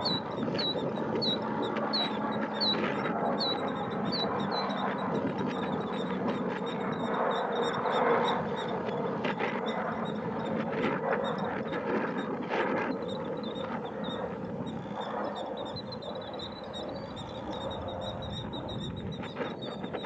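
Killdeer calling: a run of short, high, falling notes, two or three a second, through the first few seconds, then a fast continuous trill for the last several seconds. Underneath is a steady background rumble and hiss.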